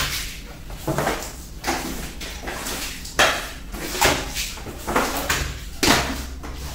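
Long-handled floor squeegee dragged in repeated strokes over a wet tiled floor, swishing and scraping water toward the drain, about one stroke a second.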